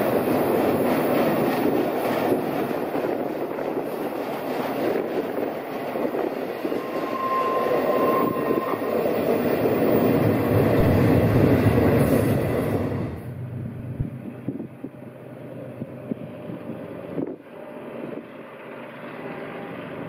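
Intermodal freight cars rolling past close by, a steady clatter of steel wheels on rail, with a brief squealing tone about seven seconds in. About thirteen seconds in it drops abruptly to a much quieter, far-off sound.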